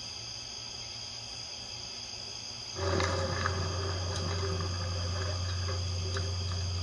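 Steady insect chirring typical of crickets at night. About three seconds in, a louder low steady hum starts with faint crackling over it and keeps going.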